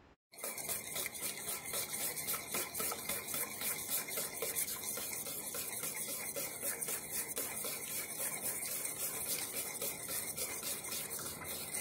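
A utensil stirring a creamy sour-cream sauce in a metal pot, scraping and rubbing against the pot in quick, continuous strokes.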